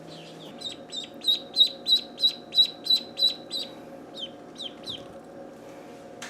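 Three-day-old ducklings peeping: a fast run of short, high, falling peeps, about three a second, then a few scattered peeps.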